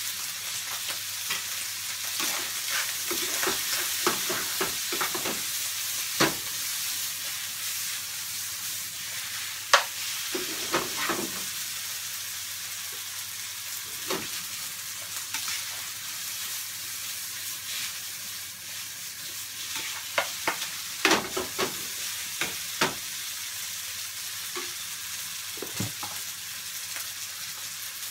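Fried rice sizzling steadily in a frying pan over a gas burner, with irregular clicks and knocks of the pan and utensil as the rice is stirred; a few knocks stand out louder about ten and twenty-one seconds in.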